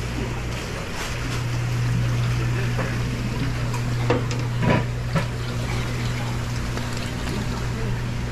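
Live-seafood tank pumps humming steadily while water runs and trickles into the tanks, with a few short clatters about four to five seconds in.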